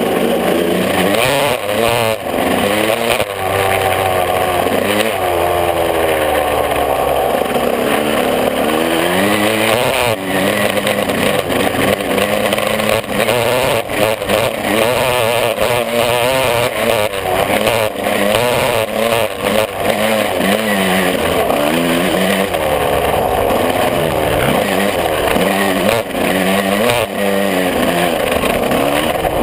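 125 cc two-stroke motocross bike engine ridden hard, its pitch rising and falling over and over as it is revved up and shifted through the gears, with scattered short knocks.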